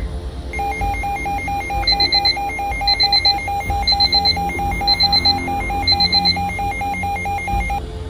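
Weather radio's alert alarm beeping: a rapid, even run of shrill beeps, with a higher chirping pattern about once a second, signalling a new weather alert coming in. It starts about half a second in and cuts off just before the end.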